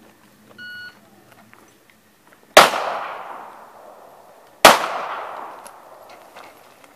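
Electronic shot-timer start beep, then two pistol shots about two seconds apart, each a sharp crack followed by a long fading echo.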